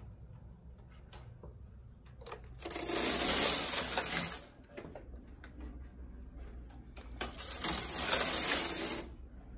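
Knitting-machine carriage slid across the needle bed, knitting a row: two clattering passes of about two seconds each, the first about three seconds in and the second near the end. A few light clicks come first, from the needles being handled.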